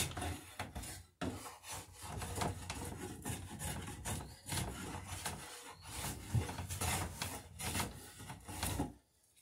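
Hand plane taking quick strokes along a wooden transom knee held in a vise, a rasping scrape about twice a second, stopping near the end.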